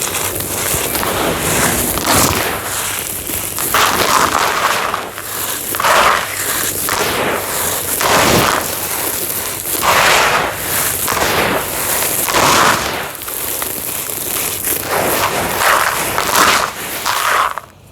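Homemade dried cement being crunched and crumbled: continuous gritty crunching and crackling, with louder crunches about every two seconds. It stops abruptly near the end.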